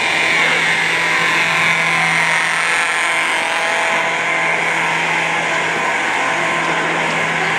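Building fire alarm sounding continuously: a loud, steady, unbroken alarm tone with no pause, the alarm system still in alarm and not yet silenced.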